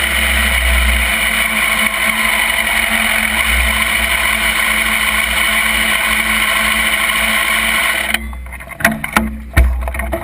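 Wind rushing over a motorcycle-mounted camera's microphone, with the motorcycle's engine and road noise, as the bike rides along. A little past eight seconds the rush drops off sharply as the bike slows, followed by a few knocks and a thump.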